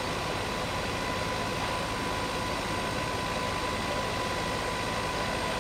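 Steady rumble and hiss at a large burning warehouse, with fire engines running at the scene and a constant high whine over it.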